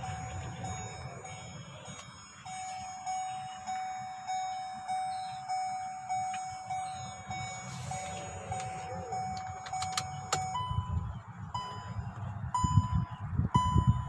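Hyundai Creta's dashboard warning chime with the ignition on, repeating a little under twice a second. After a few clicks about ten seconds in, it changes to a higher-pitched chime at the same pace, over a low rumble that grows louder toward the end.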